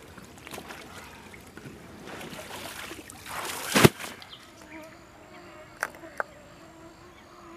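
Soft lapping and handling noise at the water's edge, then a sharp knock just before four seconds in. After it comes the faint, steady whine of mosquitoes swarming around the microphone at dusk, with a couple of light clicks.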